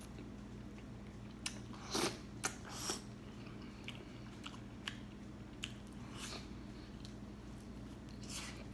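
Biting and chewing on a rotisserie chicken drumstick coated in nacho cheese sauce: a scattering of short, soft mouth sounds a second or so apart, over a faint steady low hum.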